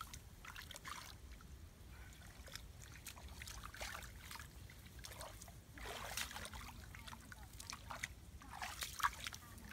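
Shallow muddy water being stirred and splashed by hands and a stick while groping for fish, with irregular soft splashes and trickles.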